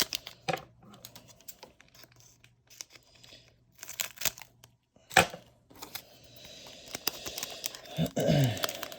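A foil Pokémon booster pack being torn open, its wrapper crinkling, with scattered handling clicks and one sharp snap about five seconds in. A brief low sound drops in pitch near the end.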